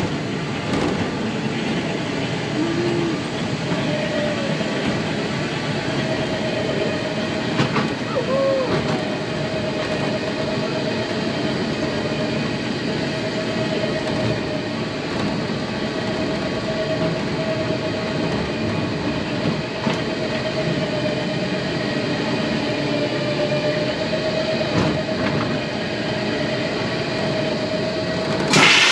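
A vehicle running steadily, with a steady whine held through most of it. A short loud noise comes just before the end.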